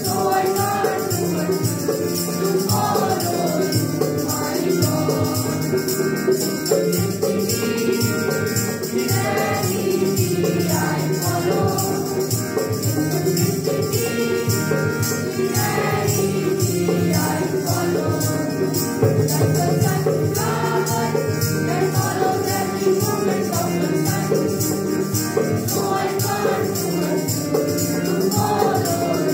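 A group of school students singing a song together, with a steady rhythmic percussion accompaniment.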